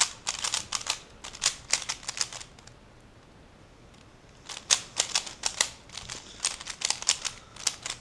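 Layers of a 3x3 Rubik's Cube being turned by hand in quick succession, a rapid run of plastic clicks and clacks. It comes in two bursts with a short pause of about a second and a half between them.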